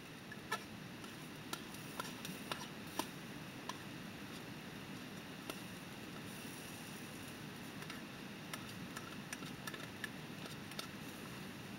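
Yakiniku meat sizzling on a grill, with irregular sharp pops and crackles of spitting fat.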